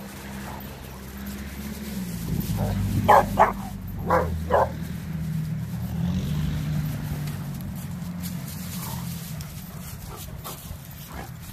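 Dogs barking in rough play, with a quick run of about five sharp barks about three seconds in and a few fainter ones later.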